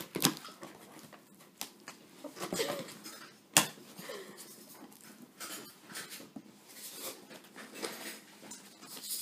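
Cardboard shipping box being opened by hand: flaps pulled back and cardboard rustling, with scattered clicks and one sharp snap about three and a half seconds in.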